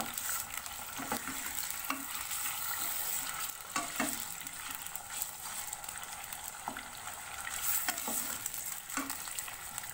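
Chicken pieces sizzling steadily in hot oil on a high flame in a karahi, at the searing stage before they turn golden. Irregular clicks and scrapes, roughly one a second, come from a spoon stirring the chicken against the pan.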